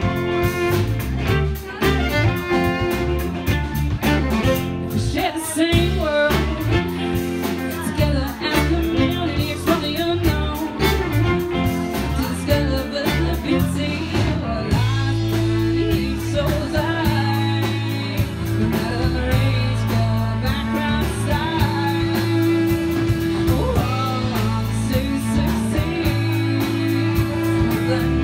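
Live band playing with drums, bass and electric guitars, a woman singing lead over it.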